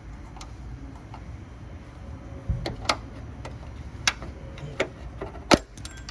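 A series of sharp clicks and clacks, about six of them starting a little over two seconds in, the loudest near the end, as the hood support strut's end fitting is worked free of its ball stud.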